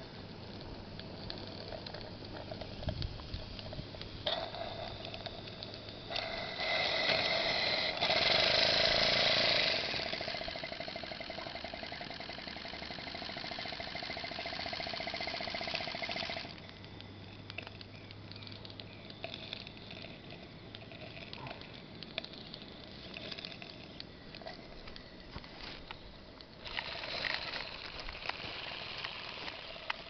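1/16-scale Regner Fowler live-steam ploughing engine running and hauling a loaded trailer in on its cable, a steady hiss of steam and exhaust. The hiss swells loudest for several seconds in the first half, drops back about halfway through, and rises again near the end.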